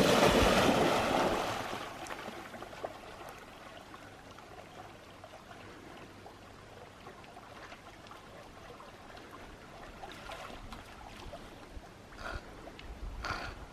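Running water, louder for the first two seconds, then a faint steady trickle.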